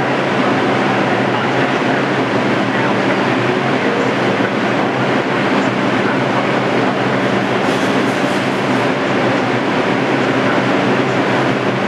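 New York City Subway R142 train noise in an underground station: a steady, loud rumble with a low hum beneath it.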